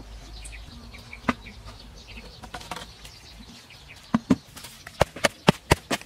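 Wooden poles being rammed down into holes in loose dirt: a run of sharp thuds, roughly three or four a second, in the last two seconds, after a single knock earlier. Birds chirp faintly in the background before the thuds start.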